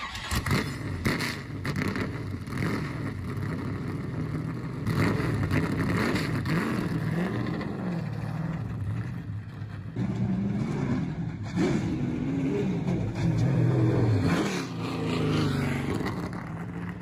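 NASCAR stock car's V8 engine running and being revved up and down over and over, its pitch rising and falling with each blip.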